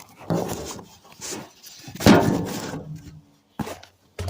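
A series of knocks and clunks from parts and tools being handled, the loudest about two seconds in, with two short sharp clicks near the end.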